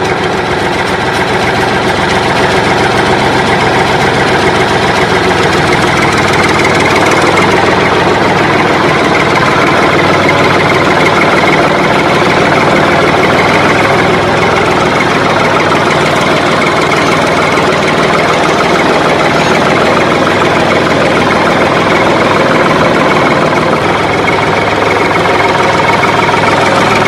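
Tractor engine running steadily and loudly without let-up, a dubbed sound effect: the plastic toy tractors make no engine sound of their own.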